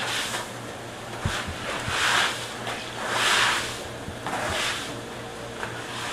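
Water and ice slush swishing and splashing across a wet floor in several long surges, with a few dull thumps about a second in, over a steady low machinery hum.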